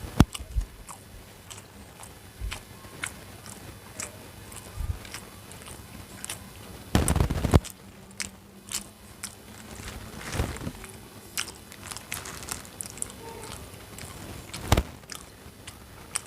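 A person eating close to the microphone: bites, chewing and mouth clicks, with a louder crunchy burst about seven seconds in and a sharp click near the end.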